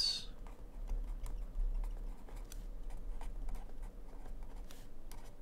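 A pen writing on the paper of a spiral notebook: faint, irregular scratches and ticks of the strokes, over a low steady hum.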